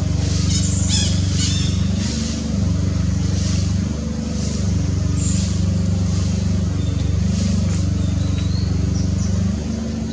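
Steady low drone of an engine running, with a few faint high chirps over it.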